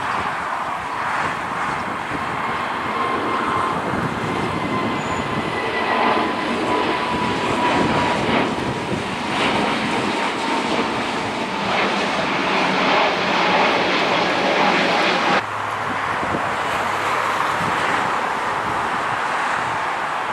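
Jet engines of an Airbus A320-family airliner at takeoff power during climb-out: a steady rush of noise with a whine that slowly falls in pitch. About fifteen seconds in it cuts abruptly to the takeoff noise of a Boeing 787-9 Dreamliner's engines.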